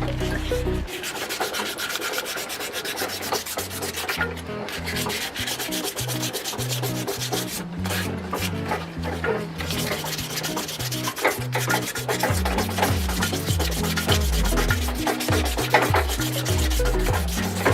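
Fine 1200-grit emery paper rubbed quickly back and forth by hand over a rusty brass padlock body, sanding off rust in repeated scratchy strokes.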